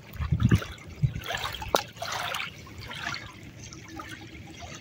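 Shallow lake water lapping and splashing over a pebble shore, with a few low thumps in the first second and a sharp click a little later.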